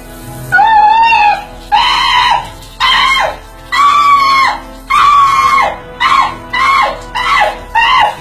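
A man's loud, high falsetto hoots in an echoing shower, about eight of them. Each is held and then drops sharply in pitch, and they come faster toward the end, like an ape's hooting.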